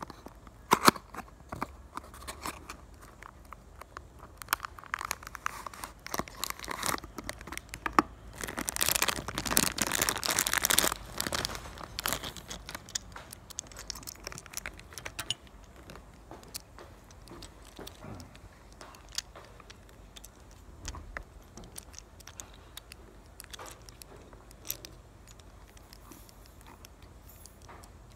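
Handling noise from a toy Hitachi EH3500AC-II dump truck and its cardboard box: scattered clicks, taps and rustling. A burst of crinkling from about 8 to 12 seconds in is the loudest part.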